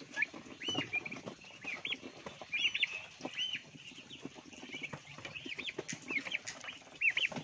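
Month-old turkey poults, a Bourbon Red × Black Spanish cross, peeping: many short, high, arched whistle-like calls in quick succession, with light clicks between them.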